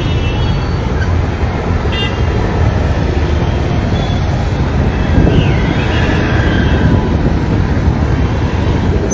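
Congested road traffic: a steady, heavy low rumble of engines with a short horn toot about two seconds in.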